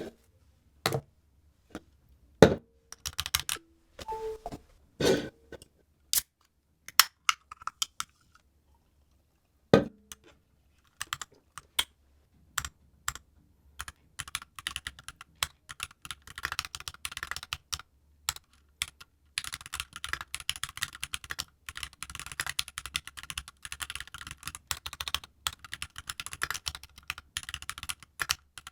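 Typing on a Keychron Q2 aluminium-cased mechanical keyboard: a few scattered knocks and clinks in the first ten seconds, then sparse keystrokes that build to steady, fast typing through the second half.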